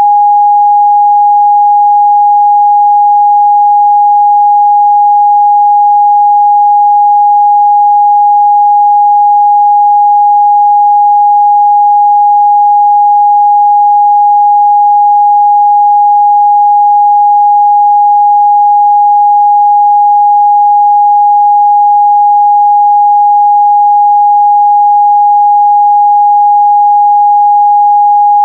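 A continuous 824 Hz sine-wave test tone, one pure steady pitch held at a constant loud level.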